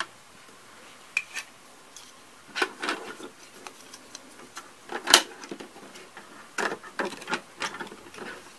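Hard plastic Playmobil parts clicking and knocking together as a toy building is handled and a piece is fitted. There are scattered clicks throughout and a sharper knock about five seconds in.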